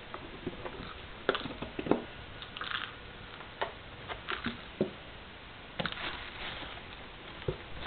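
A cat's rattle ball clicking and tapping as the cat paws at it: light, sharp clicks at uneven intervals, with a short soft rattle about two and a half seconds in.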